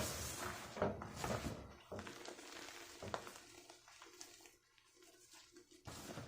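Fresh gym chalk being crushed, a run of dry, gritty crunches and crackles, loudest and densest in the first two seconds, then softer, sparser crumbling with a short burst again near the end.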